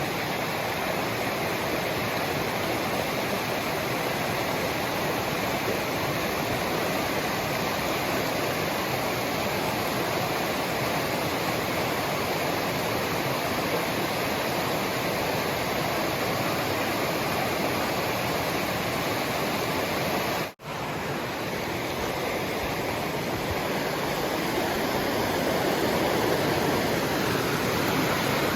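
Steady rushing roar of Laurel Fork's falls and rapids, the creek running high and fast after a day of rain. It breaks off for an instant about twenty seconds in.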